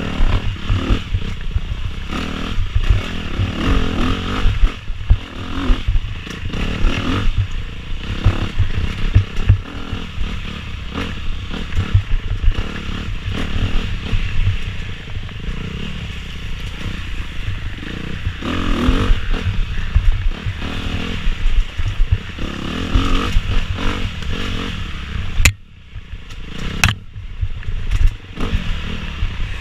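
Dirt bike engine revving up and down as the bike is ridden hard over a rough trail, with clattering and wind buffeting on the bike-mounted microphone. About 25 seconds in the sound drops off sharply for a second or two, then comes back.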